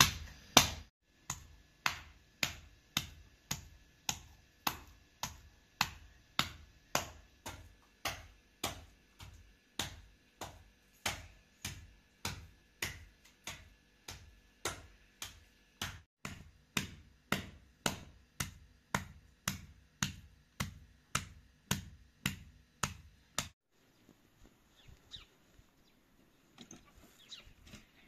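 Rhythmic knocking of a blade or mallet striking food on a wooden board by hand, about two knocks a second, stopping abruptly about four seconds before the end.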